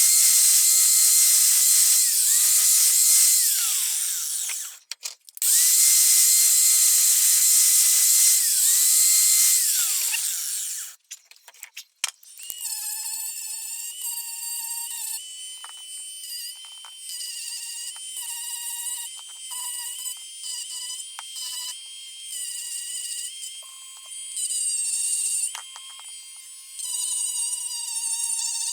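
Small high-speed electric power tool running in two long runs, its whine sagging in pitch now and then as it is pressed into the work. About halfway through, a quieter, lighter whine with shifting tones takes over.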